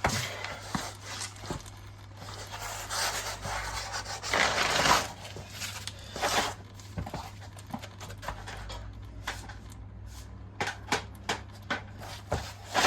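Rubbing and scraping of hands and parts as a turbo boost pipe is worked loose from its joint, with a run of light clicks and taps near the end.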